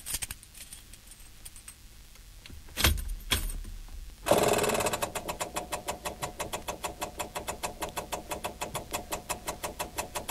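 Keys clinking, two clunks, then a Lamborghini Countach's ignition switched on, bringing a rapid, even ticking of about six a second, typical of its electric fuel pumps priming.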